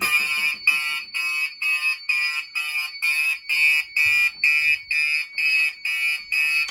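Fire alarm horn sounding in alarm, after a pull station is key-activated: a loud, buzzy pulsing tone, about two even blasts a second.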